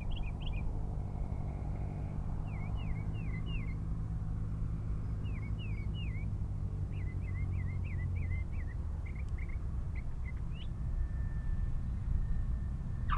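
A light piston airplane's engine and propeller droning at a steady pitch, growing a little louder near the end, while small birds sing quick, repeated chirps over it.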